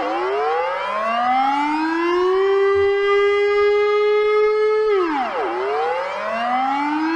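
The Netherlands' civil-defence warning siren sounding in a wailing cycle. Its tone climbs slowly from low to a steady pitch and holds, drops sharply about five seconds in, then climbs again. A lagging echo of the tone trails behind each glide.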